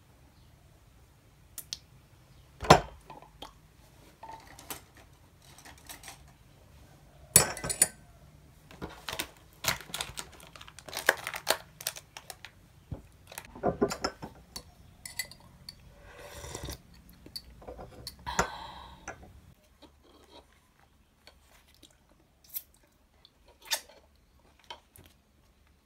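Tableware and food packaging handled on a table: clinks and knocks of a glass cup, saucer, spoon and wooden plate, and crinkling of a plastic food pack, with two sharp knocks about 3 and 7 seconds in. After about 20 seconds only a few light taps are left.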